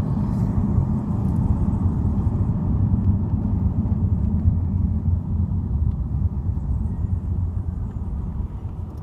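Steady low rumble of a car driving on a road, engine and tyre noise heard from inside the cabin, getting slightly quieter near the end.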